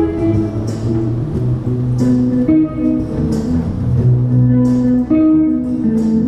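A busker's guitar: chords strummed roughly once a second, with single notes picked between them.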